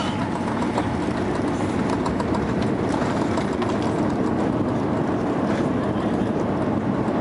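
Steady low rumbling noise inside a Boeing 787 cabin during the landing rollout, just after touchdown with the ground spoilers raised: the engines and the wheels running on the runway.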